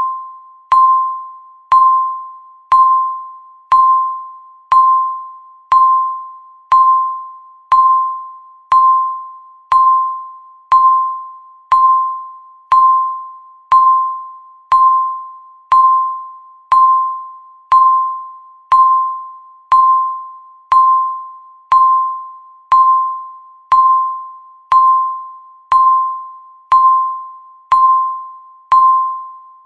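Countdown timer's electronic beep sounding once every second, each a single struck tone that starts sharply and fades away before the next.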